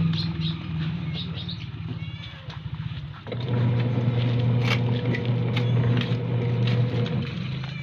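Steady low hum of an idling engine that fades near the start and comes back strong about three seconds in. Over it are scattered small clicks and squeaks from puppies suckling at their mother's teats.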